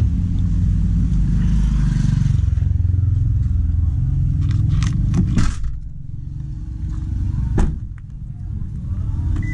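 Car engine running, heard from inside the cabin as a steady low rumble. About five seconds in the door latch clicks and the door swings open, the rumble drops, and near eight seconds the door shuts with a single knock.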